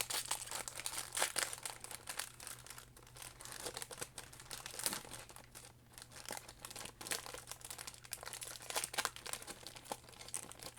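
Plastic packaging crinkling and tearing in an irregular run of crackles as a Pokémon card partner pack is opened by hand.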